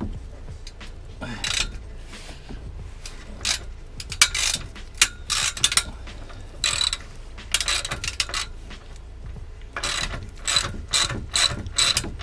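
Socket ratchet wrench clicking in short, irregular bursts as bolts on the car's exhaust are turned. The bursts come thicker and faster near the end.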